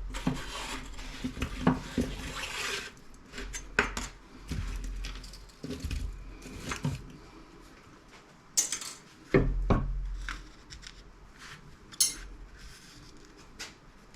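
Small pieces of scrap metal clinking and clattering as they are handled, with irregular knocks and a denser rattle in the first few seconds.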